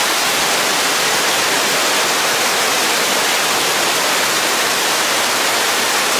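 Steady, loud rushing of an indoor pond's waterfall.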